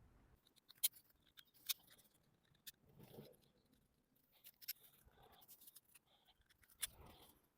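Faint, scattered clicks and light rustling of plastic hoses and clips being handled in a car engine bay, a few sharp ticks a second or more apart.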